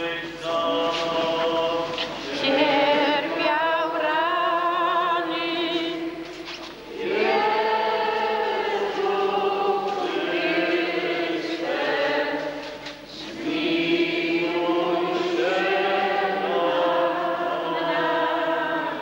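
A group of voices singing a slow hymn together, in long held phrases with short breaks about seven and thirteen seconds in.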